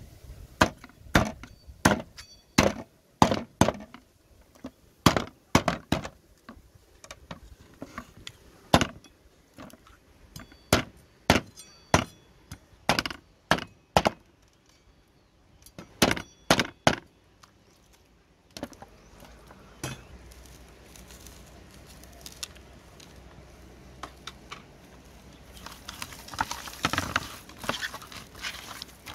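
Meat cleaver chopping a duck carcass on a wooden block: dozens of sharp chops in quick runs, stopping about two-thirds of the way through. Near the end, a rustling as hands rub seasoning into the duck pieces on a woven bamboo tray.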